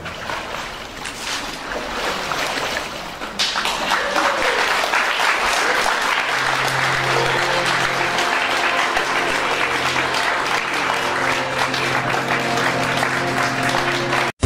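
A crowd clapping and cheering for a baptism by immersion, swelling sharply about three and a half seconds in. Music with long held notes comes in under the applause about halfway through.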